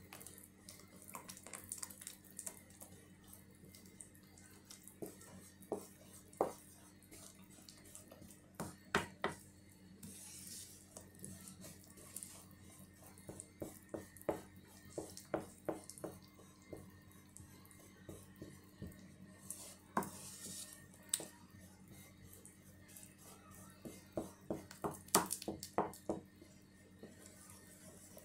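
A utensil stirring thick banana pancake batter in a ceramic bowl: irregular clinks and taps against the bowl's side, often in quick clusters, with soft wet scraping between them.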